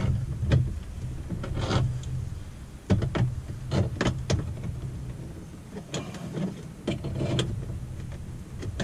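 Needle-nose pliers squeezing and bending the metal tabs of a car-stereo mounting bracket against a plastic dash opening: irregular sharp clicks and knocks of metal on metal and plastic, with hand-handling noise.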